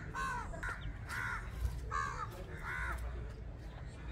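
A crow cawing repeatedly, about five short harsh caws less than a second apart.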